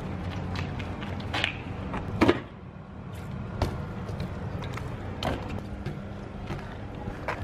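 BMX bike knocking against concrete: several sharp knocks of the wheels and frame on the ledge and pavement, the loudest about two seconds in, over a steady low rumble.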